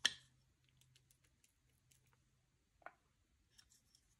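A sharp click right at the start, then faint scattered ticks and one softer click about three seconds in, during handling of slime-making materials.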